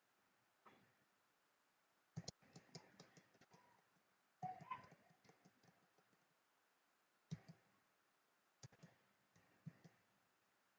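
Near silence broken by faint, scattered computer clicks in small groups, from about two seconds in.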